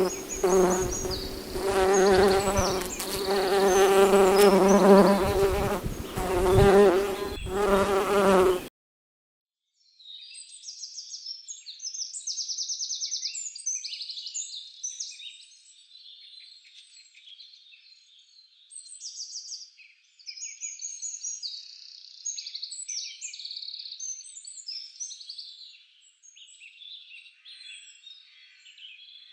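A flying insect buzzing close by, a loud wavering hum that cuts off abruptly about nine seconds in. After a second of silence, birds sing in quick high trills and chirps.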